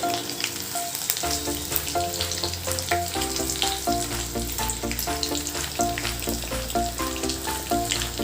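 Chicken pakoras deep-frying in hot oil, a steady sizzle with many small crackles and pops.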